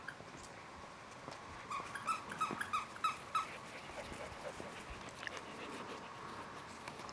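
Collie puppies whining in faint, short, high-pitched calls, a quick run of them from about two to three and a half seconds in, with a few more later.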